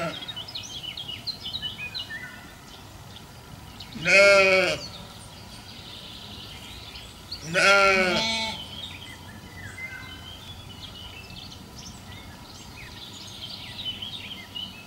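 Sheep bleating twice: two loud, wavering bleats about three and a half seconds apart, with faint high chirps between them.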